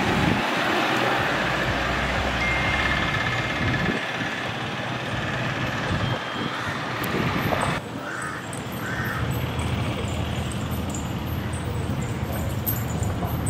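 Roadside ambience: motor vehicles passing on the road, with crows cawing. The background noise changes abruptly a little past the middle.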